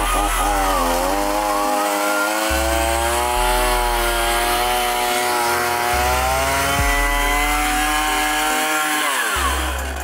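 Chainsaw converted into a surface-cleaning tool, running at speed with its pitch wavering slightly, then winding down near the end.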